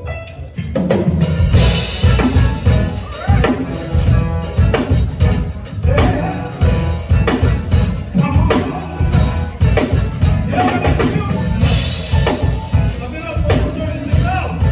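Band music with a drum kit and bass drum keeping a steady beat and a melody line over it, kicking in about a second in.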